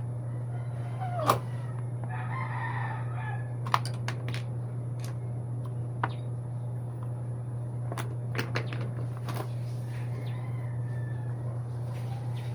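A rooster crows once, about two seconds in, with fainter clucking or calls later. Several sharp metallic clinks of hand tools working on a motorcycle's chain guide are heard over a steady low hum.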